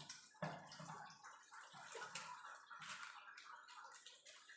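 Faint liquid sounds with a few small irregular knocks, from a home-made herbal cough mixture being spooned and mixed in its container.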